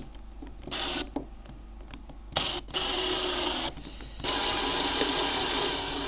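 Cordless drill-driver driving a slotted screw through a steel triangle fastener into wood, running in three bursts: a short one about a second in, then two longer runs, the last starting about four seconds in.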